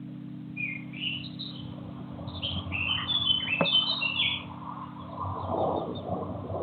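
Small bird chirping: a quick run of short, high chirps through the first two-thirds, loudest around the middle, over a steady low hum.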